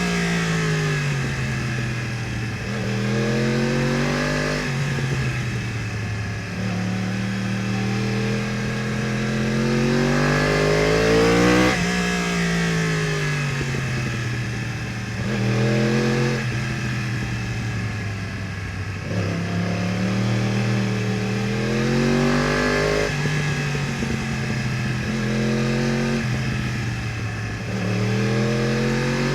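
2015 Yamaha R1's crossplane inline-four with Akrapovič headers and exhaust, revving up and down on the move: a string of rising pulls, each ending in a sudden drop in pitch or a slower fall as the throttle closes, with one long climb and slow fall in the middle.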